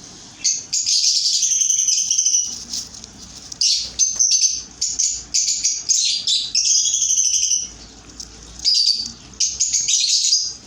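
Baby budgerigars giving high, raspy begging calls in three long bouts with short pauses between them, as chicks do when being hand-fed.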